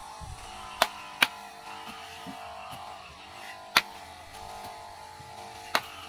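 Hoe blade chopping into packed soil and roots, four sharp strikes: two close together about a second in, one near the middle and one near the end, over a steady faint hum.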